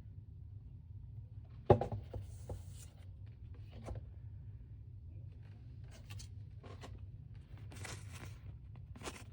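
Blind-box toy packaging being handled and opened: a sharp knock about two seconds in, then scattered clicks and several short rustling scrapes.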